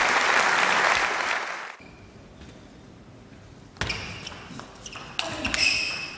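Crowd applause dying away over the first second and a half, then a table tennis rally: the celluloid ball clicking sharply off bats and table about twice a second.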